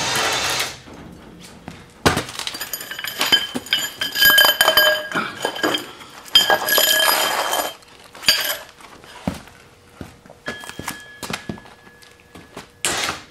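Steel roller pipes clanking and ringing against each other and the concrete floor as they are handled and set under a machine base. There are several clusters of sharp clinks and knocks, busiest in the middle, and a faint ringing tone near the end.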